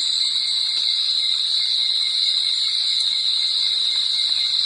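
Steady, high-pitched chorus of night insects such as crickets, droning without a break.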